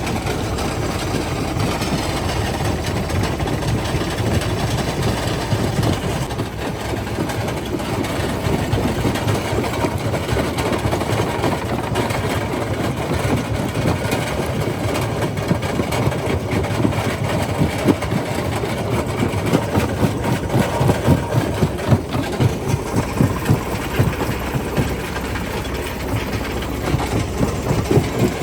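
Quarry primary jaw crusher running under load: a steady heavy machine drone with irregular knocks of rock being broken, more frequent in the second half.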